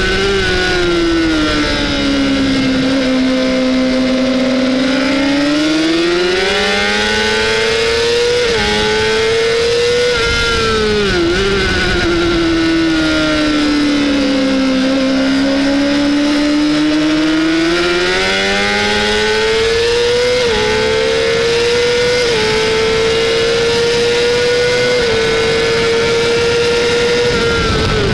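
Honda CBR600RR's inline-four engine under racing throttle. Its note falls twice as the bike slows for corners and climbs back under hard acceleration, with short steps at gear changes, then holds high on the straight, over steady wind rush.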